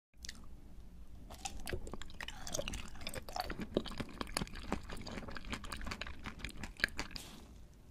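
Close-miked biting and chewing of a glossy, candy-coated translucent cube from a rainbow skewer: many sharp crackly crunches mixed with wet mouth sounds.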